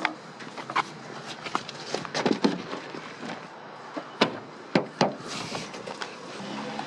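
A string of sharp knocks and clunks of car doors and luggage being handled, loudest about two and a half seconds in and again around four to five seconds in. Near the end a vehicle engine starts running steadily.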